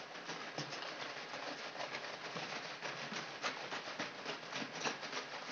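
Set curd sloshing inside a plastic bottle shaken hard by hand, churning it into butter and buttermilk; a fast, uneven splashing.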